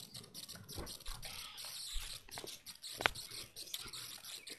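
Faint, irregular clicks and rustling from a phone being handled close up, with one sharper click about three seconds in.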